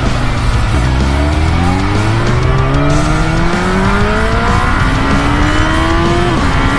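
Yamaha R1 RN09's inline-four engine through an Arrow exhaust without a dB killer, accelerating hard: the pitch climbs in stages through the gears, drops sharply at an upshift near the end, then holds steady. Wind rush runs underneath.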